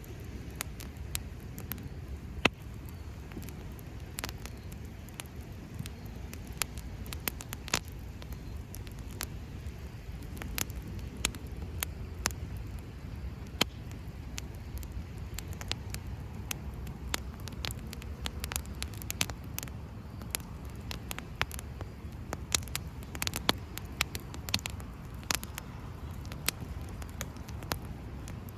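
Wood campfire crackling, with irregular sharp pops and snaps, one louder pop about two and a half seconds in, over a steady low rumble.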